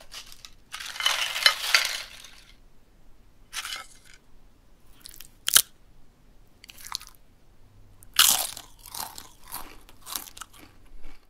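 Foley of a crisp chip being scooped through the dip, bitten and chewed: a series of separate crunches, one sharp loud crack about halfway through and a quick run of chewing crunches in the last three seconds.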